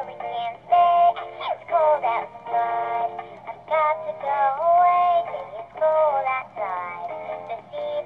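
Animated plush Christmas bear toy singing a song in a high, synthetic-sounding voice over an electronic backing tune. It plays through the toy's small built-in speaker and sounds thin.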